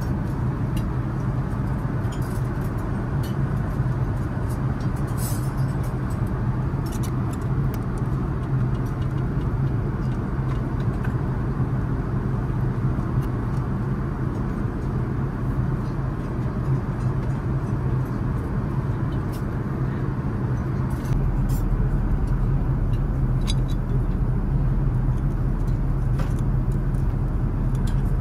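Steady airliner cabin noise of an Airbus A380 in flight: a loud, even rush with a low hum underneath, and a few light clicks on top. Near the end a deeper rumble comes up and the noise gets slightly louder.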